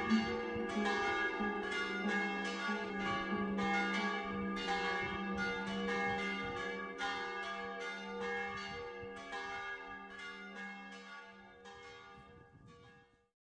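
Music of ringing, bell-like struck notes, several a second and overlapping, fading out over the last few seconds.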